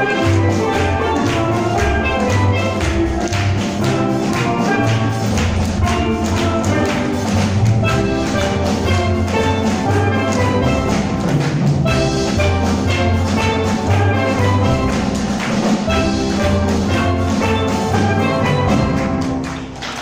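Steel drum ensemble playing live: higher pans carry the tune over bass pans sounding regular low notes. The piece ends right at the close.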